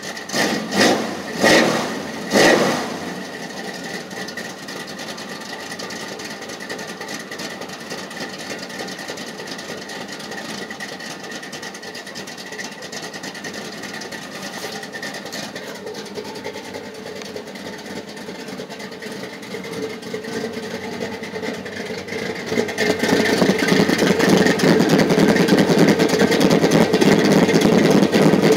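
Chevrolet square-body pickup's engine running, with three short loud bursts near the start, then a steady run that grows louder about two-thirds of the way in as it is heard from beneath the truck. The owner says the truck is making unwanted noises, a suspected knock.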